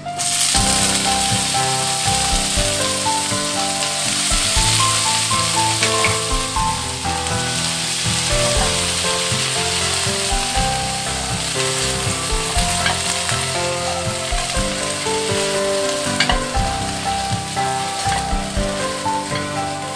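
Loud sizzling of kangkong (water spinach) stir-fried in hot oil in a wok. It starts suddenly as the wet greens hit the oil, then runs on steadily while they are tossed.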